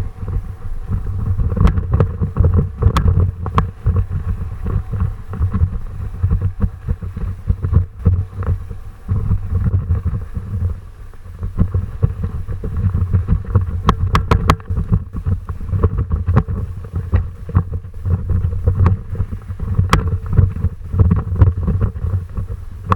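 Loud, continuous low rumble that buffets in level, with scattered sharp clicks and rattles throughout.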